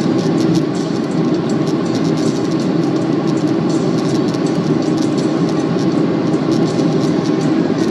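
Steady roar of airflow and the CFM56 jet engines heard inside the cabin of a Boeing 737-800, with faint irregular ticking over it.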